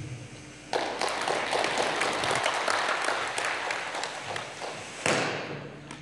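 Audience applauding. The clapping starts suddenly about a second in, swells once more near the end and dies away.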